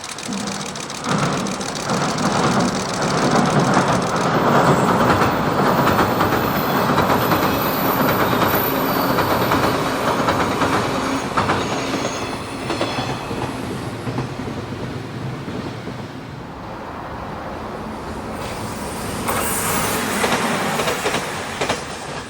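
117 series electric train passing. Its running noise builds within about a second, is loudest for about the next twelve seconds, then fades, and swells briefly again near the end.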